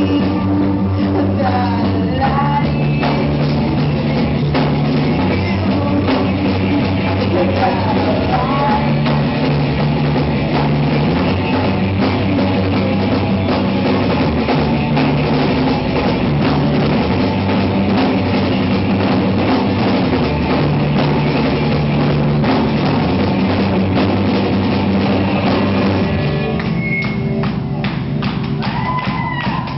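A rock band playing live and loud: electric guitars through amplifiers, bass and a drum kit, with the bass line stepping between notes every couple of seconds. Near the end the full band drops back to a thinner, quieter sound.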